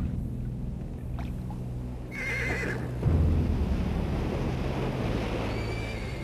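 A horse whinnies once, a short wavering neigh about two seconds in, over a low steady drone of film-score music.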